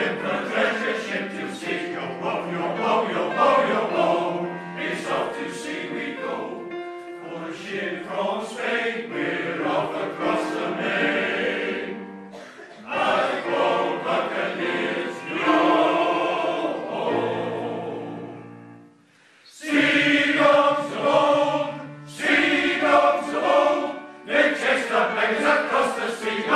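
Welsh male voice choir singing in harmony with piano accompaniment, in long sustained phrases with a brief break about two-thirds of the way through.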